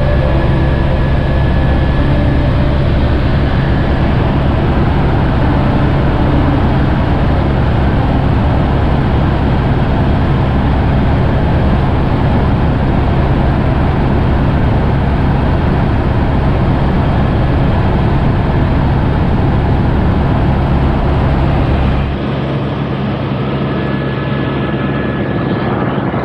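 Helicopter in flight, heard from inside the cabin: a loud, steady rotor and engine drone with a heavy low rumble. Near the end the low rumble drops away abruptly and the sound gets quieter.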